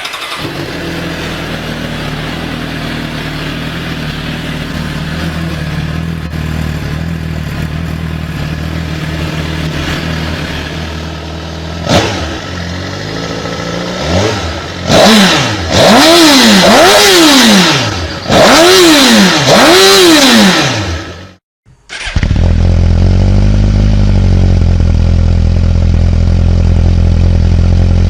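Suzuki GSX-R sport bike's inline-four engine on its stock exhaust idling steadily, then revved in a series of quick throttle blips that rise and fall. After a sudden cut near the end, another bike idles, louder and deeper.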